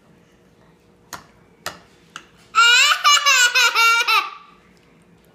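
A young child laughing loudly and high-pitched in a quick run of pulses, lasting about a second and a half just past the middle. It is preceded by a few light clicks of a fork against the bowl.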